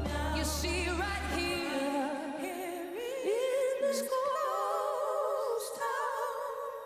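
A woman singing a slow ballad live, with strong vibrato. The low accompaniment drops away about a second and a half in, and she then holds one long note.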